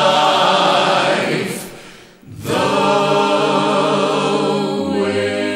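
Choir singing long held chords in harmony: the closing phrases of a gospel song. The first chord fades away about two seconds in, a new sustained chord follows, and a lower voice comes in near the end.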